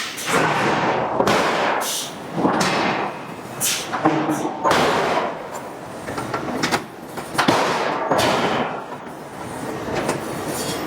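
Hydraulic forging hammer striking a hot steel billet in repeated blows, about one a second, each blow a sharp impact followed by a rush of noise.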